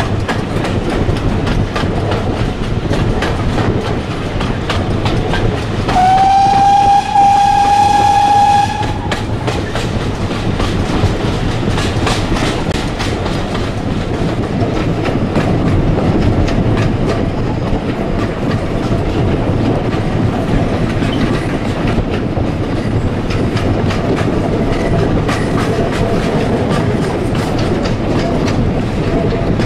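Steam-hauled carriages running along the track, a steady rumble with the clicking of wheels over the rail joints. About six seconds in, the GWR 4575 Class 2-6-2T steam locomotive sounds its whistle: one loud, steady note lasting about two and a half seconds, rising slightly at the start.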